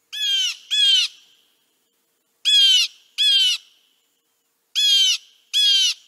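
Blue jay calling: three pairs of short calls, each call sliding down in pitch, the pairs about two seconds apart.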